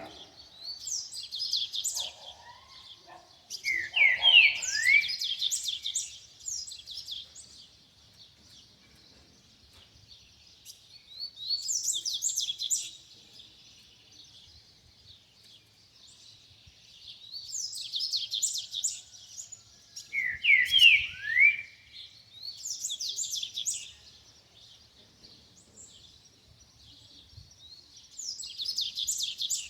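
Double-collared seedeater (coleiro) singing: short, fast, high phrases of a second or two, repeated six or seven times with pauses between. Twice, a lower run of quick down-slurred notes cuts in alongside the song.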